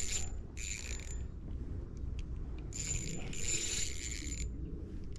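Spinning reel whirring in four short spurts, with a gap of about a second and a half in the middle, as line is cranked in against a hooked bass.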